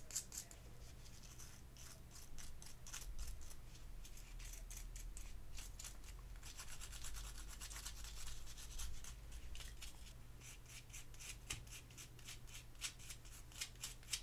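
A small stiff brush scrubbing Dettol-softened paint off small plastic model parts, in quick short strokes, several a second, faint and scratchy.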